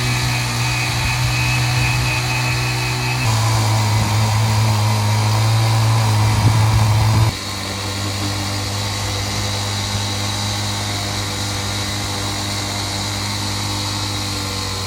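An engine running steadily, with a low hum. Its pitch drops abruptly about three seconds in, and drops again about seven seconds in, where it also becomes quieter.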